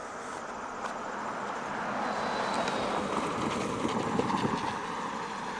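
A road vehicle passing on the adjacent road: a steady whoosh of tyre and engine noise that swells over about two seconds and then slowly fades.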